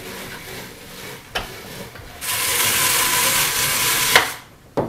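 Flicker brush scratching over wool on the large drum of a hand-crank drum carder: light scraping, then about two seconds of loud, dense scratching that ends in a sharp click, with a knock near the end.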